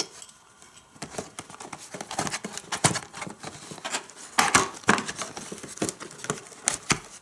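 A cardboard toy box being handled and opened by hand. Irregular scrapes, taps and rustles of paperboard as the end flap is worked open, with a few sharper snaps about three and five seconds in.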